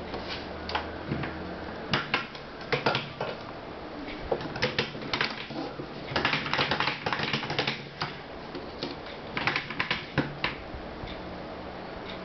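Irregular clicking and clattering of hard plastic LEGO Technic parts being handled, in quick clusters with short pauses between.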